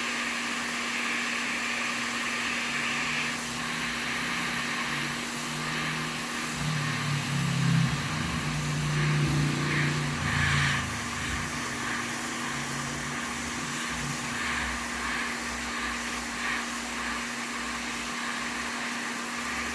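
Hot-air rework station blowing steadily while heating the board to lift off a soldered PS5 HDMI port, with an even hum under the hiss. A louder low rumble swells and fades for several seconds in the middle.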